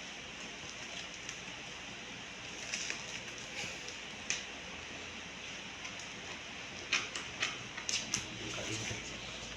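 Light handling noises from unboxing: a few short, scattered clicks and rustles of packaging and parts being handled, over a steady background hiss.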